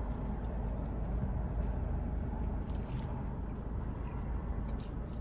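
Car engine idling, a steady low rumble heard from inside the cabin, with a few faint clicks over it.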